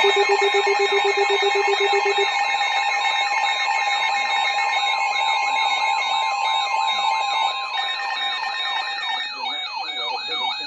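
Several emergency weather-alert receivers sounding their alarms together, heralding a new warning. Steady and pulsing electronic tones overlap with a warbling, siren-like sweep. A low pulsing tone drops out about two seconds in.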